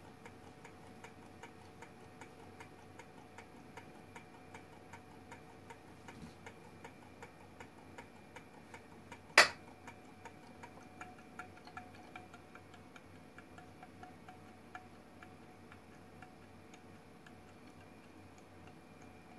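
Small gamma Stirling engine running on a mug of hot water, its piston and crank ticking lightly about two and a half times a second. A single loud sharp click about halfway through as a hand grabs the engine, after which the ticking goes on.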